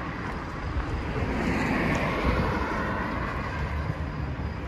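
Street traffic: a steady low rumble of road traffic, with a vehicle passing that swells up about two seconds in and fades away.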